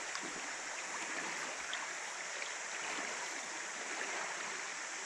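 Shallow river flowing over stones: a steady, even rush of water.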